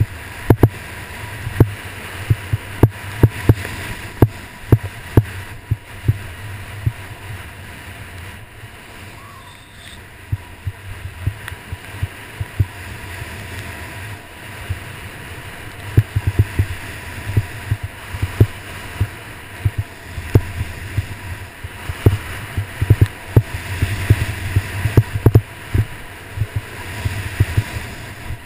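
Salomon Quest 105 skis sliding and turning on snow, a steady hiss, with wind buffeting the microphone in low rumbles and many sharp thumps from the run's bumps; it eases off for a few seconds about a third of the way in.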